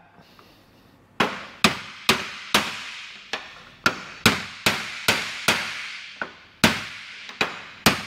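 Hammer blows driving a metal pin into a Ford pedal assembly: about fifteen sharp, ringing strikes, roughly two a second, starting about a second in.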